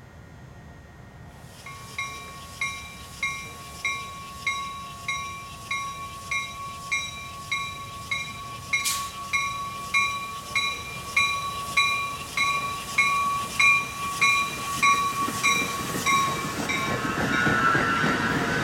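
Bell of a Metra Highliner electric multiple-unit commuter train ringing about one and a half strikes a second as the train approaches, growing louder. Near the end the bell stops and the cars roll past with a rumble of wheels on rail.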